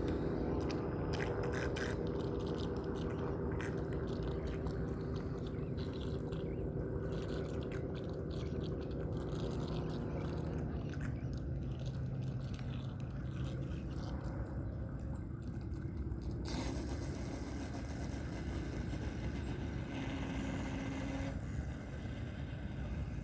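Radio-controlled boat running, its motor giving a steady hum that shifts lower in pitch about halfway through as the throttle or distance changes.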